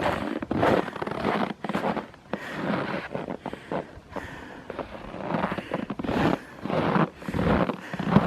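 Footsteps crunching and creaking in dry, cold snow at a steady walking pace, roughly two steps a second.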